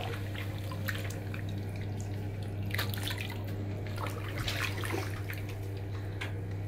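Bathwater splashing and dripping in a tub as feet in soaked canvas high-top sneakers move through the foamy water, in scattered small splashes. A steady low hum runs underneath.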